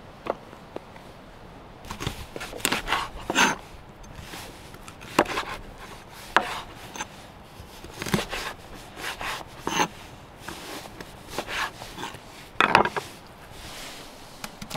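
Large knife chopping raw oxtail into pieces on a wooden cutting board: about a dozen sharp, uneven chops, some in quick pairs, with the hardest blow near the end.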